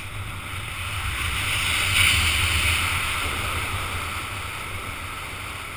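Wind rushing over the camera microphone during a fast speed-wing descent, with a low buffeting rumble underneath. It swells to its loudest about two seconds in, then eases off gradually as the flyer comes down just above the ground.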